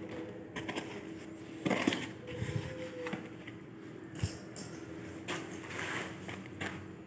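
Handling noises from a wristwatch and its packaging: scattered clicks, taps and rustles, with a sharper knock just under two seconds in and another about four seconds in, over a faint steady hum.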